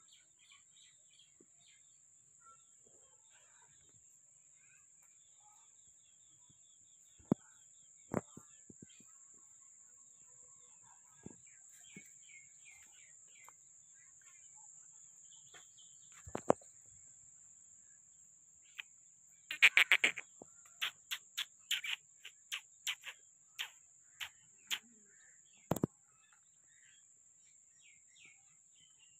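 Quiet outdoor animal-yard ambience: faint bird chirps over a steady high-pitched whine, with a few scattered knocks. About two-thirds of the way through comes a run of loud, sharp clicks, several a second at first, then spaced out.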